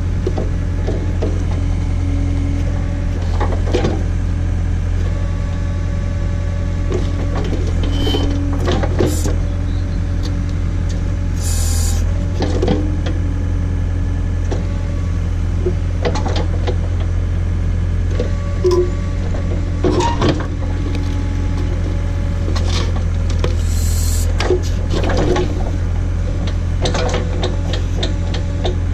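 John Deere 317 garden tractor engine running steadily, powering a Davis D100 backhoe digging at a tree stump, with scattered knocks and scrapes as the bucket works through roots and dirt.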